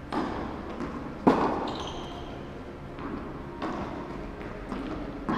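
Tennis rally: a ball struck by rackets and bouncing on the court, a few sharp hits with an echo after each, the loudest about a second in.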